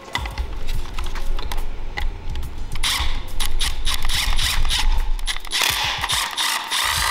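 Power drill boring a hole through the side of a plastic 3D-printed vent gauge pod: the motor whirs with rapid clicking, and the cutting gets louder and harsher from about three seconds in.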